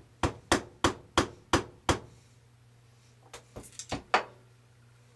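Six sharp taps in a steady rhythm, about three a second, then a few lighter clicks and one last knock, from work on a Glock pistol's frame, typical of tapping its trigger-housing pin home.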